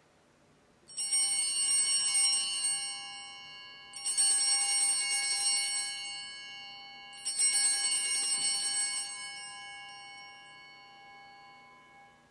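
Altar bells rung three times, each a jangling shake that rings on and fades, the last dying away slowly: the bells rung at the elevation of the host at the consecration.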